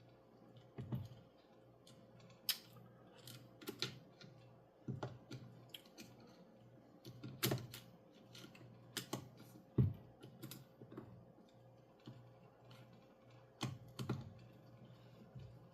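Irregular light clicks and taps of small hard parts being handled and fitted by hand, about one every second with uneven gaps, a few louder knocks among them.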